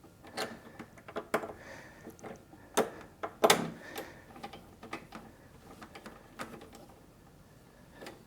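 Scattered clicks and knocks of a lawnmower handle and its fasteners being handled and tightened by hand, the loudest knock about three and a half seconds in, going quieter near the end.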